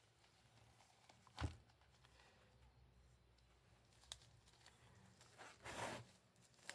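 Mostly quiet, with faint handling sounds of a wallet being unboxed: one soft knock about a second and a half in, a light click later, and a short rustle near the end.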